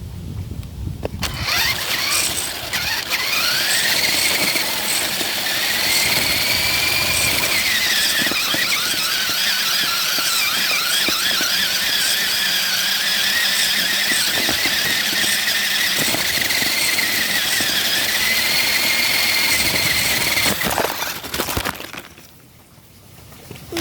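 Radio-controlled car's electric motor whining as the car drives, rising in pitch as it speeds up about a second in, then wavering up and down with its speed before dying away near the end.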